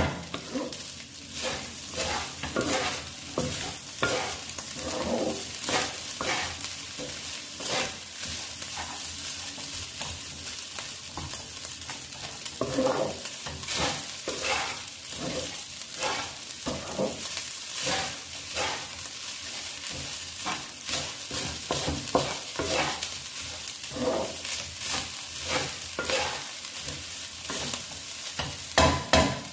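Wooden spatula stirring and scraping fried rice around a honeycomb-textured stainless-steel wok in repeated strokes, over a steady frying sizzle. A couple of louder knocks come near the end.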